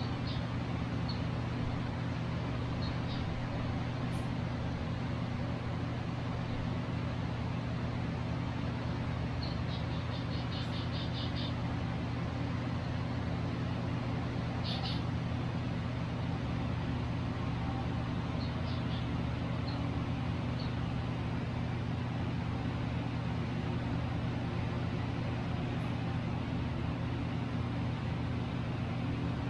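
Steady low machine hum, with faint high chirps from small caged birds scattered over it, including a quick run of about eight chirps about ten seconds in.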